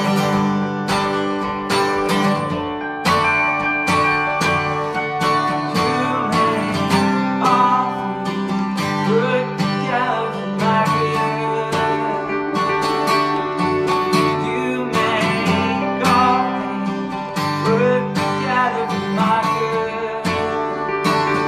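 Two guitars playing a song together: an acoustic guitar strumming with a second guitar playing along.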